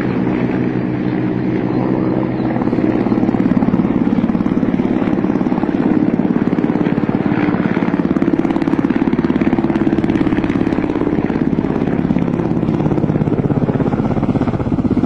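Kamov coaxial-rotor attack helicopter flying low overhead, its rotors making a steady, rapid chop. It gets louder about two and a half seconds in.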